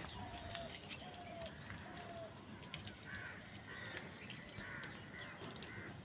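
House crows calling with short caws, first about once a second, then several higher calls close together from about three seconds in.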